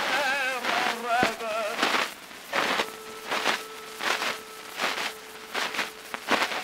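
Early acoustic Edison Amberol cylinder recording of a tenor singing in French with orchestra accompaniment: a phrase sung with wide vibrato, then a long held note. Heavy surface noise runs throughout, with repeating crackles a little more than once a second.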